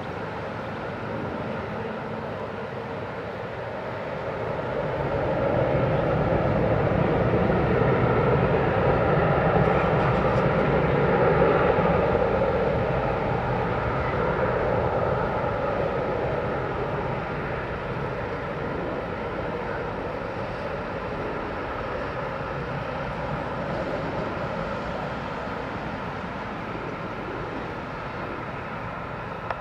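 Boeing 737-800's CFM56-7B turbofan engines spooling up to takeoff thrust about five seconds in, then the jet noise slowly fading as the aircraft rolls away down the runway on its takeoff run.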